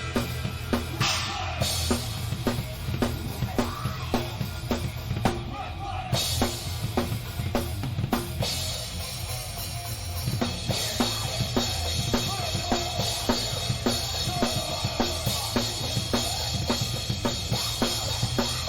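Live rock band playing, with the drum kit up front: bass drum and snare hits in a steady beat, with cymbal wash over the rest of the band's low end.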